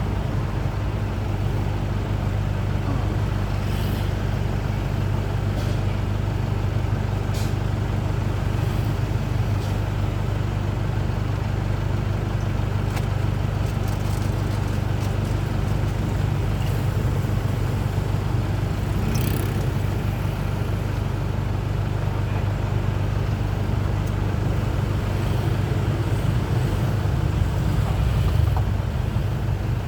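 Truck's diesel engine running steadily under way, with road noise, broken a few times by short hisses.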